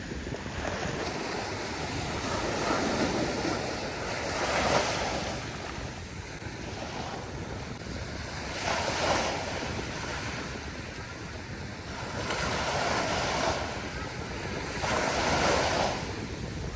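Sea waves breaking and washing up a beach, swelling and fading every few seconds, with wind rumbling on the microphone.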